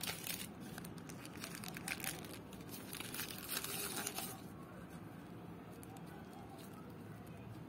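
Crinkling plastic film of a processed cheese slice's wrapper being peeled off and handled, in quick irregular crackles that stop a little over four seconds in.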